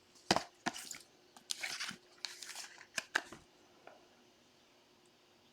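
Trading cards and their plastic and paper packaging being handled: several sharp clicks and short crinkling rustles over the first three seconds or so, then the handling stops.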